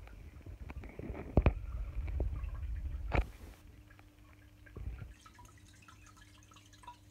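Aquarium water dripping and trickling, with a low rumble and two sharp knocks in the first half, about two seconds apart, the loudest part.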